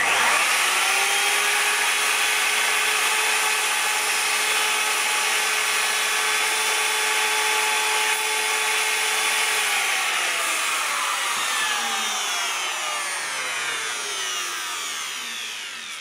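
Trend router spinning up with a rising whine, then running steadily while cutting a finger notch into MDF. About ten seconds in it is switched off, and its whine falls slowly as the motor and cutter coast down.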